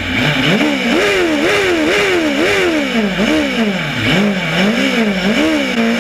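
Cross kart engine revving in quick throttle blips while the kart stands on the start grid, its pitch rising and falling about twice a second, then settling at a steady low note near the end.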